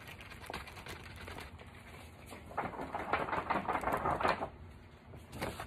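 Handling noises from stiff cardstock and a plastic shaker jar of chunky gold glitter: scattered clicks and taps, with a dense run of rapid rattling clicks lasting under two seconds about halfway through.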